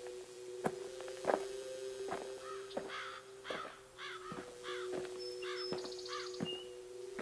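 A bird cawing, about seven harsh calls in a row starting a few seconds in, over a steady low hum and sharp knocks about every 0.7 seconds.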